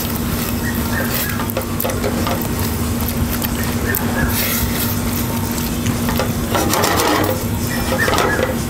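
A spatula stirring risotto in a stainless steel pot, a steady run of quick scrapes and wet churning of the rice in stock and cream, over a constant low hum.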